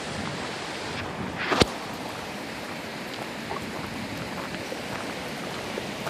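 Steady rushing noise of running creek water, with one sharp knock about a second and a half in, the loudest sound here.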